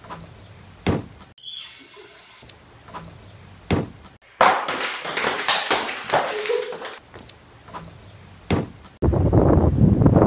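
A few sharp thuds of a basketball bouncing and striking the hoop and ground, with a noisy stretch of handling in the middle. In the last second or so, steady wind buffets the microphone.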